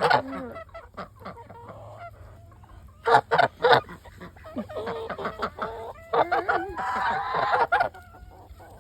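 Backyard poultry flock of chickens and ducks calling. Three short loud calls come about three seconds in, and a busier run of overlapping calls follows a few seconds later.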